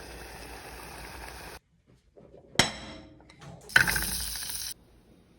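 Kitchen sounds: a frying sizzle that cuts off abruptly, a sharp clink with a short ringing, then a sudden second stretch of sizzling hiss lasting about a second.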